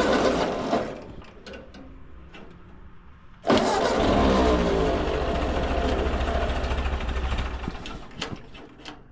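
1944 Ford 2N tractor's four-cylinder engine, just started cold, running with its throttle opened briefly at the start and again about three and a half seconds in, the revs falling away over a few seconds and settling back toward idle.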